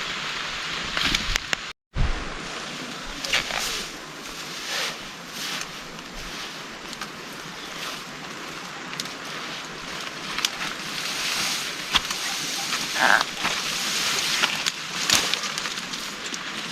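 Heavy rain pouring down in strong wind, with many sharp taps and splashes of drops on surfaces. The sound drops out completely for a moment about two seconds in.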